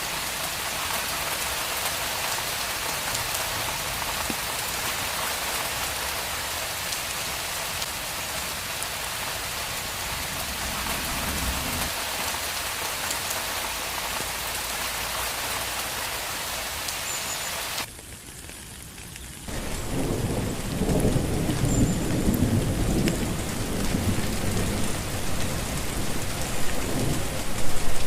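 Steady heavy rain falling on a street. It drops away briefly about two-thirds of the way through. Then the rain resumes with rolling thunder rumbling underneath, loudest near the end.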